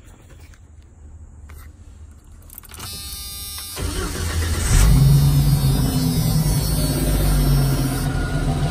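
A 1993 Jeep Wrangler YJ's 4.0-litre straight-six is cranked by the starter for about a second, catches with a brief rise in revs and settles into a steady idle. The cracked exhaust manifold is freshly repaired and the engine runs with no exhaust leak.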